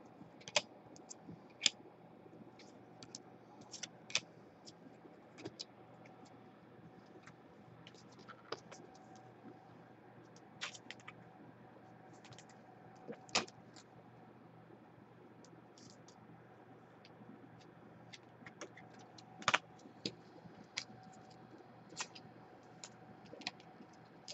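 Scattered faint clicks and taps at irregular intervals, a few a little louder, over a low steady hum.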